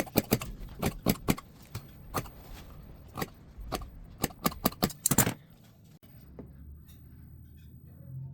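A quick, irregular run of sharp clicks and snaps, about fifteen over five seconds, then only faint handling noise.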